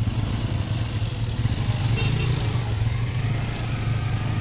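Small motorcycle engine running steadily under way, a constant low drone.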